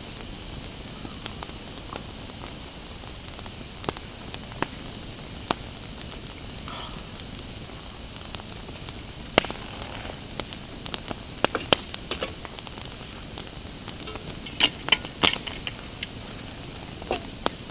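Small wood campfire crackling, with sharp pops that come more often and louder in the second half, over a steady hiss.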